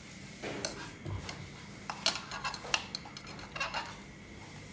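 Metal spoon stirring a liquid dressing in a ceramic bowl, clinking and scraping against the bowl in a few scattered, irregular taps.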